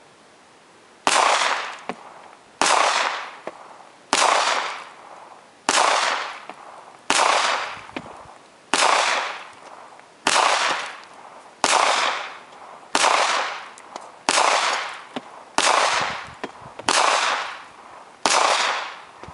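Thirteen semi-automatic .22 shots fired at a steady pace, about one and a half seconds apart, each followed by a fading echo.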